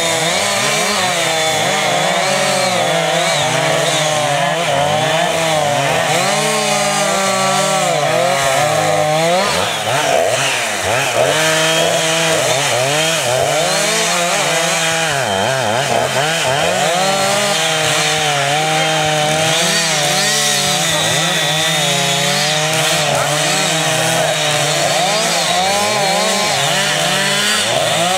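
Chainsaw running continuously at high speed, its engine pitch wavering up and down.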